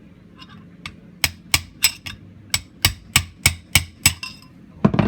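Rapid hammer blows on metal, about three a second with a brief pause before two last strikes, driving on a wheel bearing and seal stuck in a wheel hub to knock them out.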